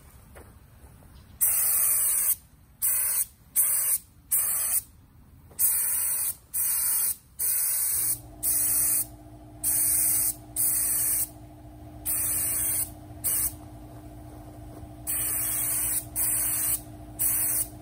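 Air spray gun spraying paint in more than a dozen short hissing bursts, each trigger pull lasting from a fraction of a second to about a second. About halfway through, a steady machine hum sets in beneath the bursts.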